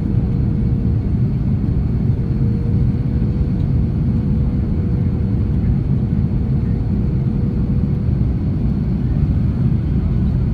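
Airbus A330-300 airliner heard from inside the passenger cabin: the steady, even rumble of the engines and airflow, with a faint steady whine over it.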